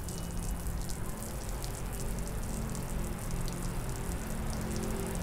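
Stream of water from a solar camp shower's hose nozzle falling steadily onto wet concrete, a continuous splash with many small drop sounds. A low steady hum runs underneath.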